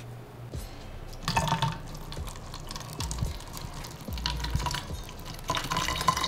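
Liquid sloshing and pouring in plastic bottles as rehydration shakes are mixed, in two bursts: about a second in and again near the end.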